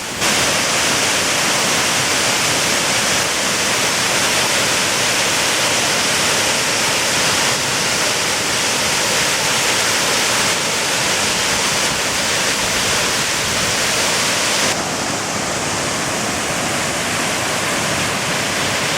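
Waterfall pouring into its pool, a loud, steady rush of falling water; the high hiss eases slightly about fifteen seconds in.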